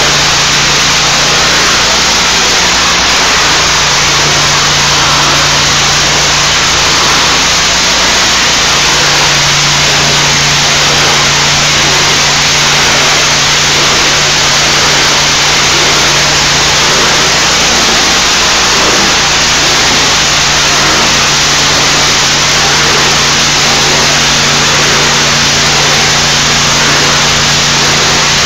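Hot-water pressure washer running: a steady engine hum under a loud, even hiss of high-pressure water spray.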